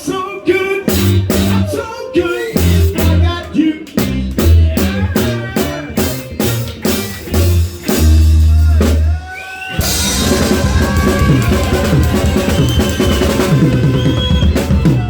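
Live band music heard close to the drum kit: a steady beat with bass drum, snare and bass guitar, with guitar and singing. About ten seconds in, the beat gives way to a sustained wash of cymbals and held notes.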